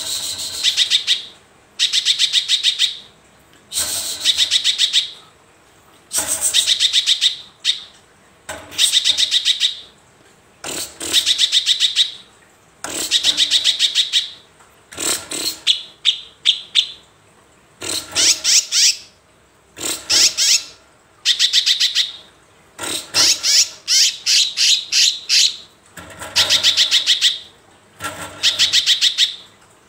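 Caged cucak kinoi in full song: a string of rapid, high trilled phrases, each about a second long, repeated roughly every two seconds.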